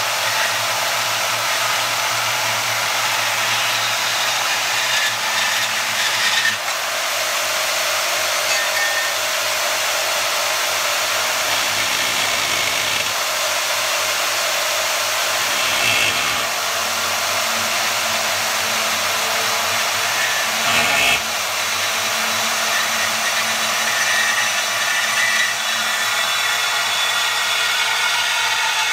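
Bauer 10 amp variable-speed portable bandsaw running steadily and cutting through a thin-walled aluminum tube. A couple of brief knocks come about six seconds in and again about twenty-one seconds in.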